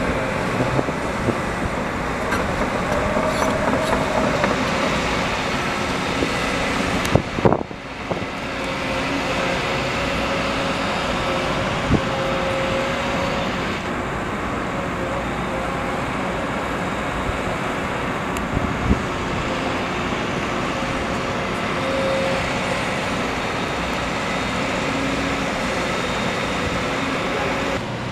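Heavy diesel construction machinery running steadily on a building site, with a few short knocks.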